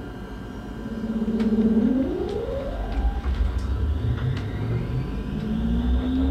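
Electric S-Bahn train pulling away from standstill, heard from on board. Its traction drive whines in a pitch that rises as it accelerates, with a second, higher whine climbing later. Under it a low rolling rumble builds, with a few sharp clicks.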